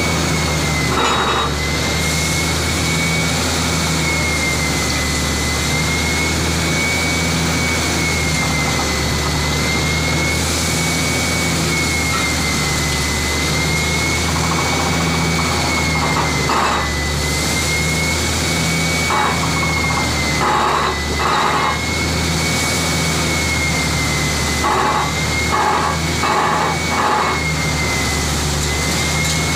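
Tractor-mounted borewell drilling rig running, its diesel engine giving a steady heavy drone with a pulsing low throb. A high whine wavers slowly up and down over it, and short bursts of harsher noise come a few times in the second half.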